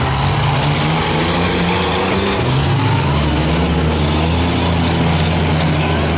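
Demolition derby minivan engines running hard, their pitch rising and falling as they rev and ease off, over a steady haze of noise.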